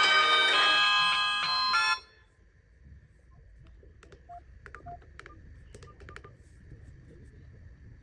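A phone ringtone of bright, bell-like tones plays and cuts off suddenly about two seconds in. It is followed by quiet with faint clicks and a couple of short beeps.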